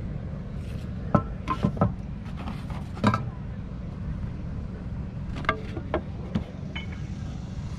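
Clinks and knocks of old metal items being picked up and handled among junk on a table, some with a brief metallic ring, over a steady low hum.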